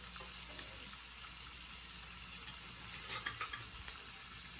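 Oil sizzling steadily in a hot frying pan, with a few light clicks about three seconds in.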